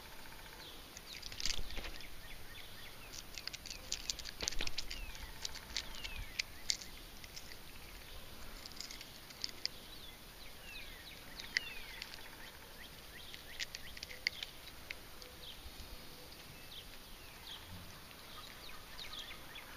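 Quiet lakeshore ambience: scattered short, falling bird chirps over soft clicks and patter, likely water lapping at the rocks.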